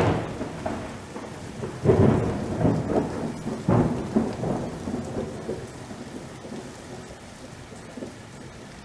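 Thunder with rain, as an intro sound effect: three loud claps about two seconds apart in the first four seconds, each dying away slowly, then a fading rumble over a steady hiss of rain.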